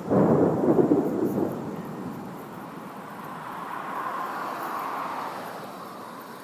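A thunder rumble breaks in suddenly and rolls for about two seconds before fading. After it, a softer rushing hiss swells and dies away.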